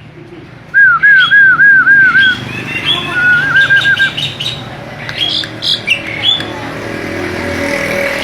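A starling (jalak) calling: a run of about seven loud, arching whistled notes in quick succession, then a faster series of shorter notes, mixed with higher chirps. In the second half the calls thin out over a steady background noise.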